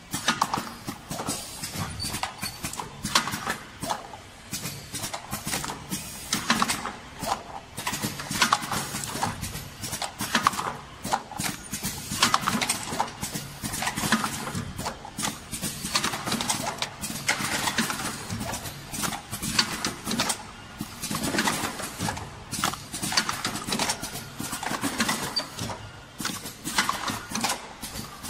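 Automatic plasticine cup-filling machine clattering as it runs: a quick, uneven stream of mechanical knocks and clicks from its moving parts as it extrudes, cuts and drops dough into cups.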